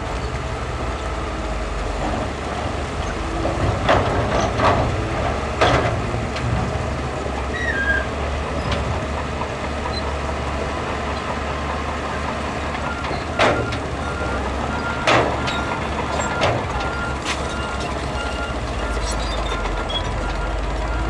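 Heavy diesel earthmoving machinery running with a steady low rumble, punctuated by several sharp metallic clanks. From about two-thirds of the way in, a steady pulsed beeping of a reversing alarm sounds over it.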